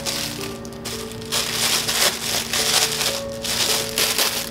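Parcel packaging rustling and crunching in three bursts of about a second each as it is rummaged through by hand, over soft background music with held notes.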